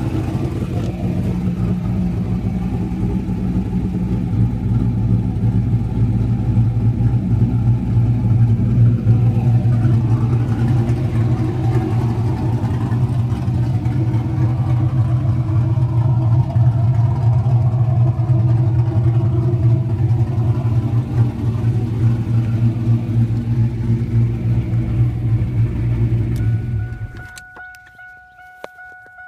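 1999 Pontiac Trans Am WS6's 5.7 L LS1 V8 with aftermarket PRC cylinder heads and a 224R camshaft, idling through its dual exhaust. It runs steadily, then cuts off sharply near the end, leaving faint steady tones.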